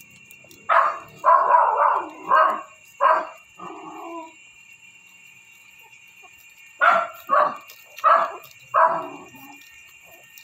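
Dog barking in short, sharp yaps: a run of about five starting about a second in, then a pause, then four more.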